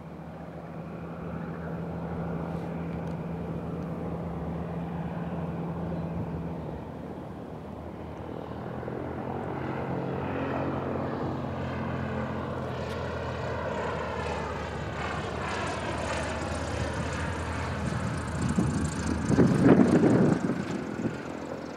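A 1964 Cessna 172F's engine and propeller on landing approach. The engine note steps down about six seconds in as power comes off, then swells and swirls as the plane nears and passes low and close over the runway near the end.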